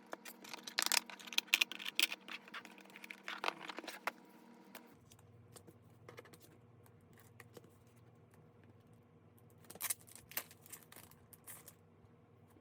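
Packaging being handled and opened: a busy run of crinkling, rustling and clicking for the first few seconds, then quieter, with a few more sharp clicks and rustles near the end.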